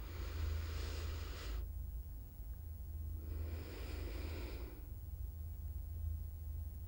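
A person breathing slowly and audibly: two long, breathy breaths about three seconds apart, over a low steady hum.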